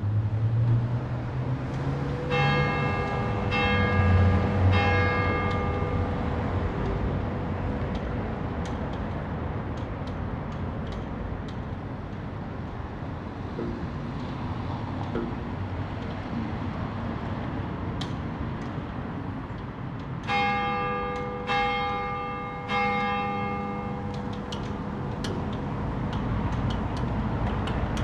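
Church tower bell struck in groups of three: three strokes about a second apart, a long pause, then three more, and a further stroke right at the end, each ringing on. A low rumble sits under the first strokes.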